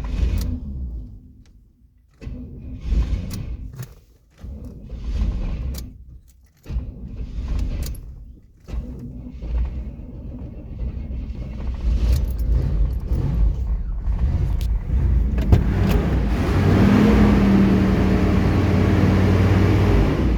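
1993 GMC Yukon's V8 engine cranked in four short attempts of about two seconds each, then catching and running unevenly, growing louder and settling into a steadier run about sixteen seconds in. A hard start on old, stale fuel after the truck sat all winter.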